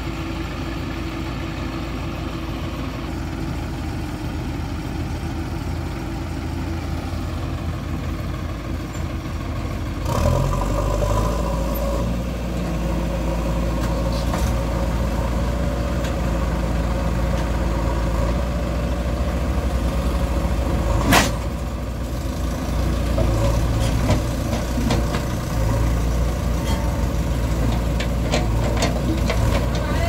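Diesel engines of a JCB 3DX backhoe loader and a farm tractor running steadily. About ten seconds in, the tractor's engine comes in louder and deeper as it pulls away with a trolley loaded with soil. A single sharp knock sounds about two-thirds of the way through.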